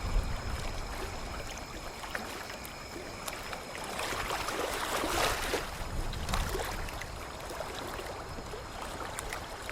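River water moving around a small boat: a steady rushing hiss that swells for a second or so about four seconds in, with a few small knocks and a low rumble underneath.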